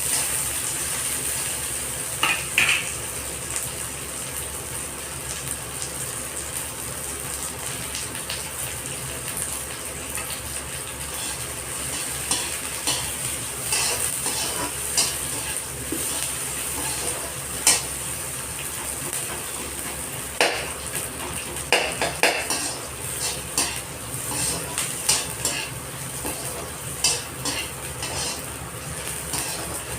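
Rice frying in a pan, with a steady sizzle, while a metal spoon stirs it, scraping and clinking against the pan now and then.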